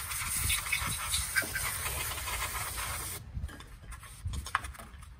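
Steady hiss of a spray that stops abruptly about three seconds in, followed by a few light clicks and taps of handling.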